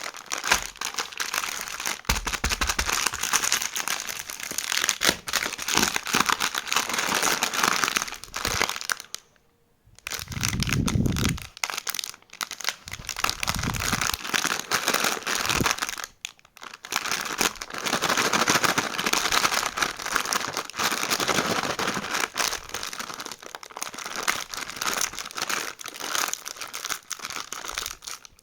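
Plastic snack packet of Bingo chips crinkling loudly as it is squeezed and handled, almost without let-up, with two brief pauses and a few dull thumps in the lulls.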